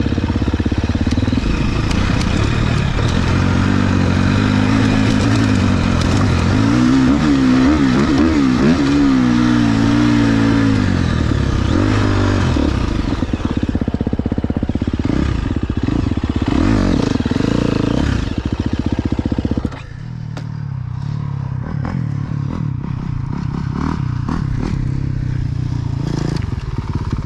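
Dirt bike engine revving up and down as the bike works over rough ground, with clatter and scraping from the trail. About two-thirds of the way through the sound drops suddenly to a quieter, steadier engine run.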